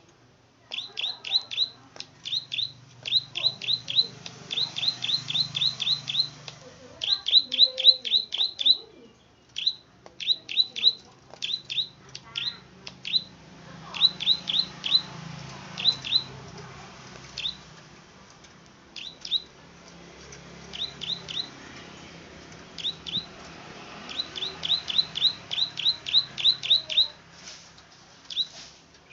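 Plain prinia (prenjak padi) singing its 'klik-klik' song: quick runs of sharp, clicking notes that drop in pitch, about five a second, in bursts of three to eight with short pauses between. A faint low hum runs underneath.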